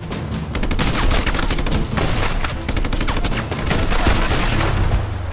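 Rapid gunfire, many shots in quick succession.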